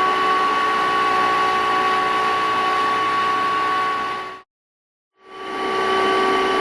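Vacuum cleaner motor running with a steady airflow rush and a high whine, fading out about four seconds in; after a short silence it runs again.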